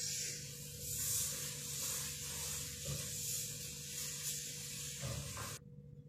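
A steady hiss, strongest in the high range, that stops abruptly about five and a half seconds in.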